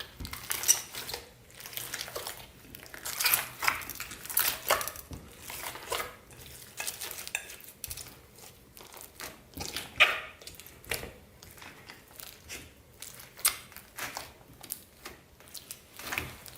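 Hands squishing and folding clear slime mixed with plastic beads, making irregular crackling and popping clicks.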